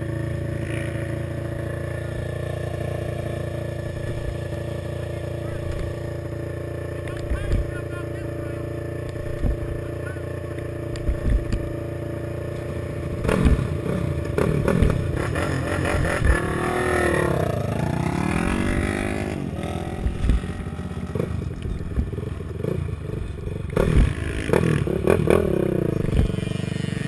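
Honda TRX450R quad's single-cylinder four-stroke engine idling steadily. About halfway through it revs and accelerates, its pitch rising and falling with the throttle, over clattering knocks from the chassis.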